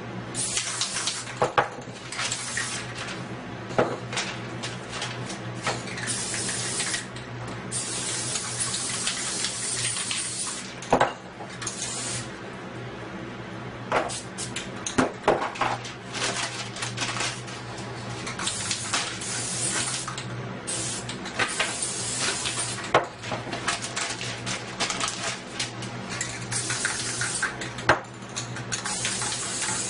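Aerosol spray paint cans hissing in repeated bursts of one to three seconds, with sharp clinks and knocks of things handled on the tabletop between them.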